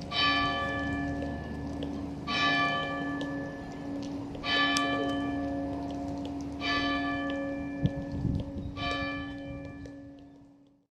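Great Peter, a three-tonne medieval bourdon bell, struck five times about every two seconds. Each stroke rings on over a steady deep hum note. There is a short knock about eight seconds in, and the sound fades out near the end.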